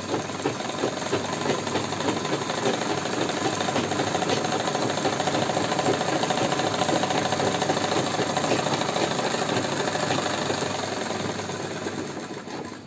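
Sewing machine running steadily, stitching a decorative seam round and round in curves; it slows and stops near the end.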